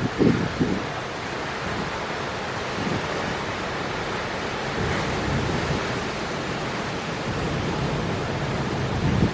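Storm surf on a rocky shore: a steady, even roar of breaking and churning waves, with gale wind buffeting the microphone in the first second.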